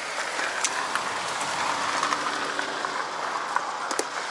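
Steel snow chain on a Mercedes Sprinter's rear wheel being handled and fastened: chain links rattling, with a few sharp clicks, over a steady rushing noise.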